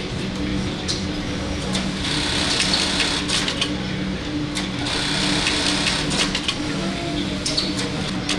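Industrial sewing machines running on a busy sewing floor: a steady machine hum with scattered clicks, and stretches of higher whirring that start and stop as the machinists sew.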